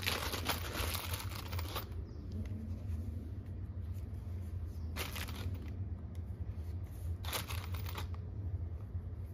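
Small plastic zip-lock bag of copper rivets crinkling as rivets are fished out of it by hand, in three spells: for the first two seconds, briefly about five seconds in, and again just past seven seconds, over a steady low hum.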